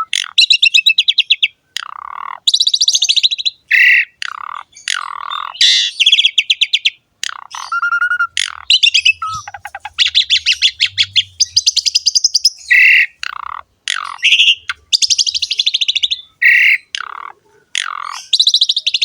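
Asian pied myna (jalak suren) singing in full voice: fast, rattling trills alternate with short whistles and harsh notes, phrase after phrase with barely a pause.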